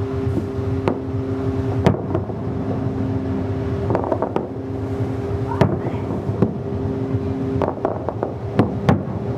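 Ships' whistles in the harbour sounding long, steady blasts at two pitches together, breaking off and starting again, while New Year fireworks crack and pop about once a second over a low rumble.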